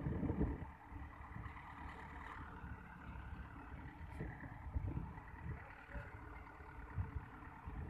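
Mobile truck crane's diesel engine running steadily as it hoists a large steel pipe, with wind buffeting the microphone.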